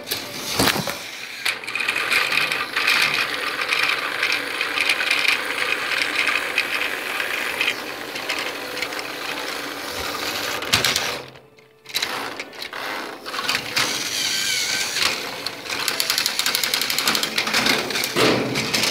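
Battery-powered toy train's small motor and plastic gears whirring steadily, cutting out for under a second a little past halfway and then running again, with a few knocks.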